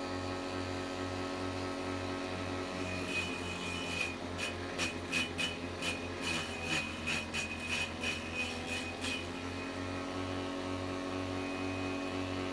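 Vegetable chopper built from a water-pump motor with a grass-cutter blade, running with a steady hum; from about four to nine seconds a quick run of sharp chopping strikes, about two or three a second, as greens are fed to the spinning blade, the motor's hum wavering under the load.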